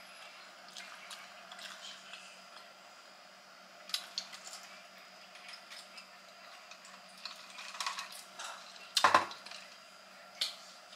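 Faint clinks and sipping of a drink through a metal straw from a glass, with a single sharp knock about nine seconds in.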